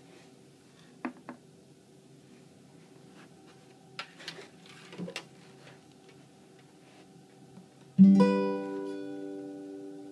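Acoustic guitar: a few light knocks and handling rustles, then about eight seconds in a single chord is struck and left to ring, slowly fading.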